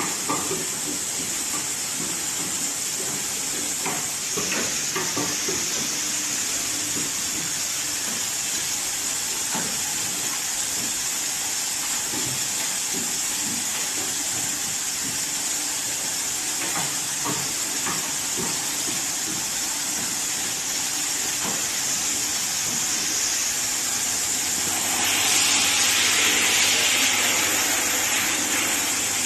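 Hanger metal-clip assembling machine running, with its vibratory bowl feeders: a steady hiss with irregular clicks and knocks from the mechanism. About 25 s in a louder, rougher hiss swells for a few seconds.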